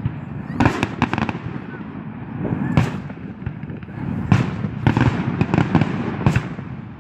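Fireworks going off: a series of sharp bangs and cracks, a quick cluster about a second in and single ones every second or so after, over a steady low rumble of further bursts.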